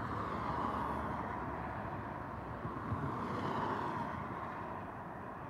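Road traffic passing: a steady hum of tyres and engines that swells about half a second in and again around three and a half seconds in.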